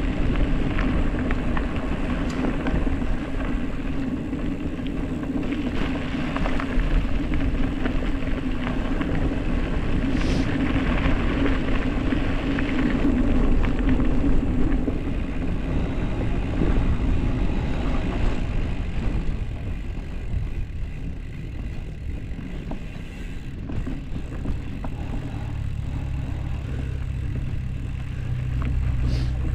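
Wind rushing over the microphone and tyres rumbling on a dirt road during a fast gravel-bike descent, easing somewhat a little past the middle.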